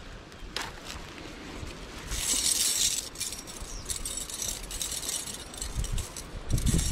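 Close handling noise on the camera: rustling and scraping with many small clicks and clinks, and a brief hissing rush about two seconds in.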